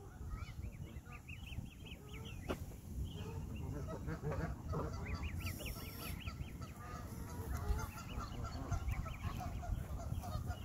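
Canada goose goslings peeping in runs of quick, high chirps, one run near the start and another around the middle, over a low rumble on the microphone.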